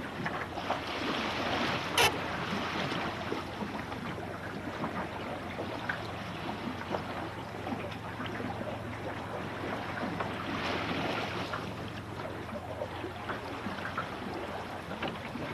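Water rushing and splashing along the hull of a Finn dinghy under sail, mixed with wind noise, swelling louder twice. One sharp knock about two seconds in.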